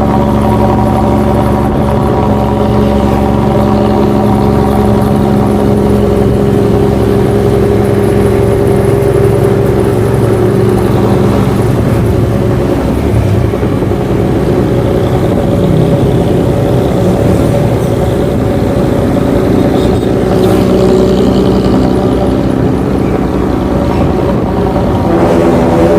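Engine of a Luragung Jaya intercity bus running through its exhaust, a loud, steady droning note whose pitch shifts slightly about halfway through and settles again near the end.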